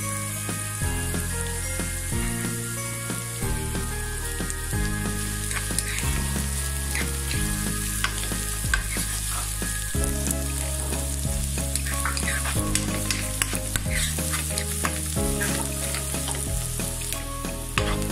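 Sliced onions and whole spices sizzling in hot oil in a nonstick wok as the onions fry toward browning. A wooden spatula stirs and scrapes the pan now and then, more often in the second half.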